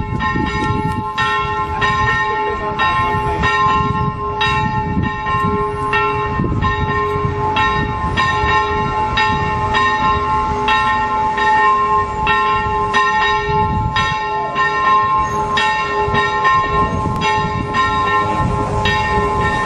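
Church bells ringing in quick repeated strokes, about two a second, their tones hanging on between strikes, over a low rumble.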